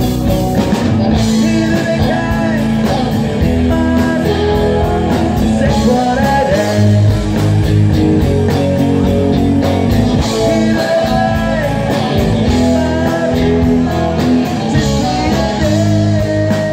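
Live band performing a pop-rock song: a voice singing over guitar with a steady drum beat.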